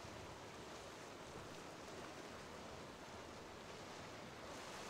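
Faint, steady wash of waves and wind, with no distinct engine tone.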